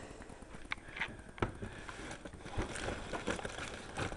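Handling noise: scattered light clicks, knocks and rustles as craft supplies (twine cards on a ring, items in a storage bin) are moved about by hand.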